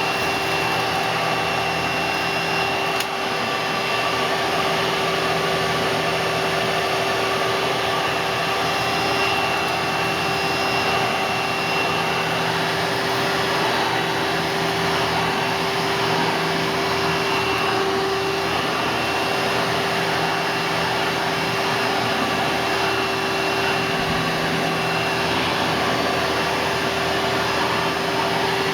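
1997 Hoover Dimension Supreme direct-air upright vacuum cleaner running steadily: a constant whine over the rush of air as it sucks up a pile of dirt through its hose.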